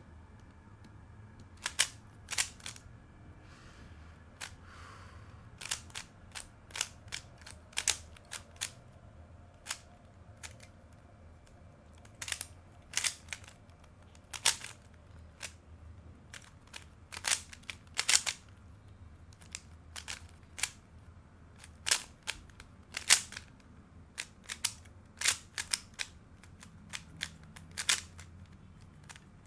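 A Moyu RS3M 2020 3x3 speedcube being turned fast during a timed solve: irregular sharp plastic clicks and clacks of the layers snapping into place, coming in quick clusters.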